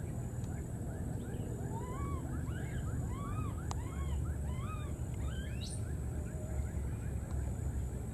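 Short chirping animal calls, several a second, each rising and falling in pitch, over a steady low wind rumble.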